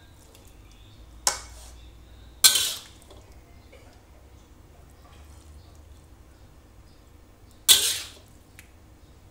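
A spatula scraping against the wok while stir-fried jackfruit is turned, three short, loud strokes: two close together about a second in and one more near the end.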